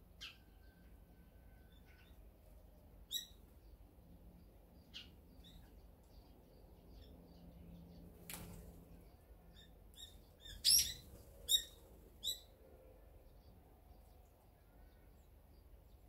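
Eurasian tree sparrows chirping: short separate chirps scattered through, with a loud quick run of chirps a little past the middle.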